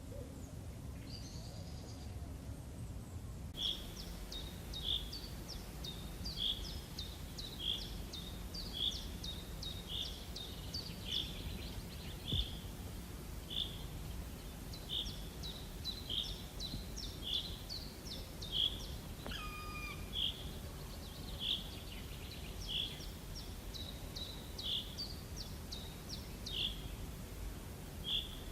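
A small bird calling over and over: a short high chirp about once a second, beginning a few seconds in, over a steady low background rumble.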